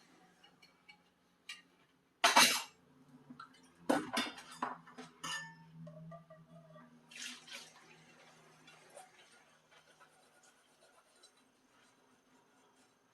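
Washing dishes at a sink: dishes clattering and water splashing in short bursts, the loudest about two seconds in, a cluster around four to five seconds and another near seven seconds.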